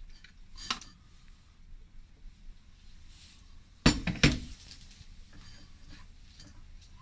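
Kitchen utensil clatter: a silicone spatula tapping and scraping against a metal sieve and a blender jug, with a light click under a second in. About four seconds in come two sharp knocks close together as the blender jug is set down on the counter.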